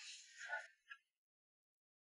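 Near silence: a brief faint rustling hiss in the first moment, a tiny click, then dead silence.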